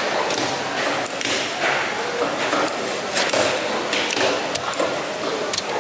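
Large knife cutting and chopping into a small shark behind its head, with scattered knocks and clicks, over the steady clatter and chatter of a busy fish market.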